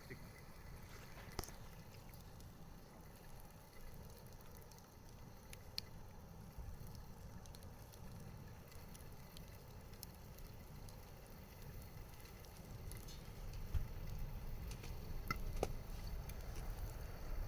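Wood campfire burning with a few sharp crackling pops over a low rumble that grows louder toward the end.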